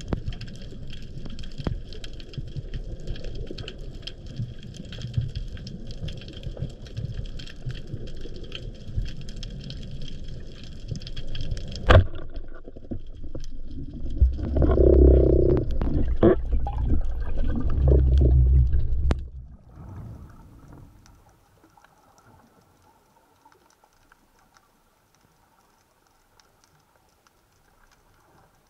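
Underwater noise picked up by a diver's camera: a low rumble with fine crackling and a sharp click about twelve seconds in. The rumble grows louder for several seconds, then it falls away to near silence.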